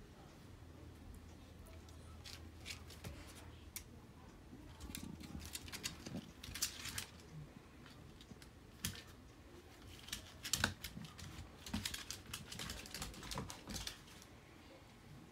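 Dog claws clicking and scrabbling on a hardwood floor as a Pembroke Welsh corgi puppy and a second dog play, in scattered runs of quick ticks, busiest in the middle and again toward the end.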